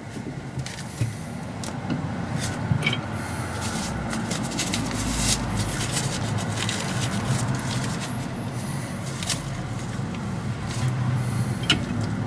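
Steel scraping and clicking as a wheel nut is wound down with a bar over a stack of washers, pulling a splined wheel stud into an MGA rear hub.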